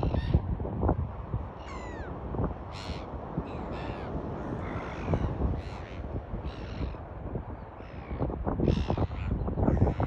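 Gulls calling: a string of short, harsh calls at irregular intervals, one of them a falling, gliding call about two seconds in.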